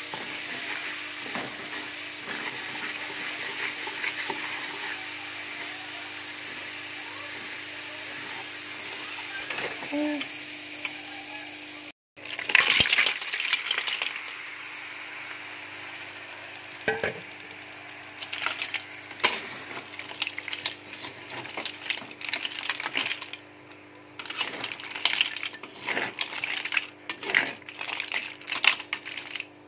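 Green mussels in spiced sauce sizzling in a metal wok with a steady frying hiss. After a brief break about twelve seconds in, a metal spatula stirs and turns them, with repeated clicks and scrapes of shells against the pan.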